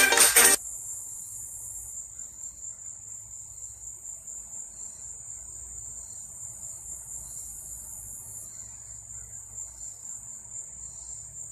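Music cuts off abruptly just after the start, then crickets chirp in a steady high-pitched trill: the stock cricket sound effect used to mark an awkward silence.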